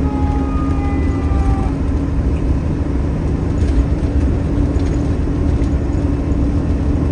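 Fire engine's engine running with a steady, heavy rumble and drone heard inside the cab as it drives. Its siren winds down at the start, the falling pitch fading out about a second and a half in.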